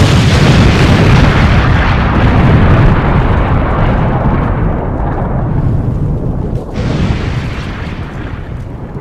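Explosion sound effect: a sudden, very loud deep blast that rumbles on and slowly fades, with a smaller second surge about seven seconds in.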